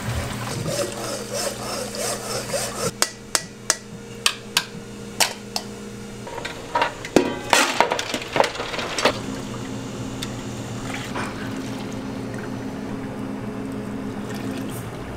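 Ramen stock being poured and strained between pots, with a run of sharp metal knocks and clinks of pots and strainer a few seconds in, over a steady kitchen hum.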